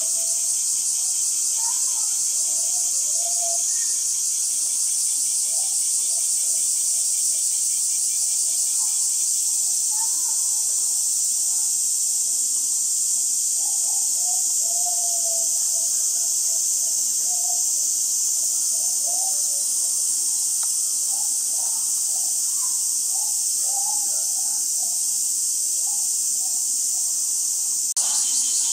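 Steady, high-pitched insect chorus, with faint voices of people underneath.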